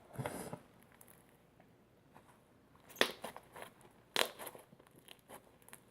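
Slime with small foam beads mixed in being squeezed and worked by hand, giving a few short clusters of crackles and pops with quiet between.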